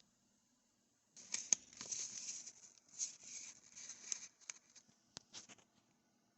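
Packaging being handled while a product is unboxed: about three seconds of noisy rustling, then a few sharp clicks.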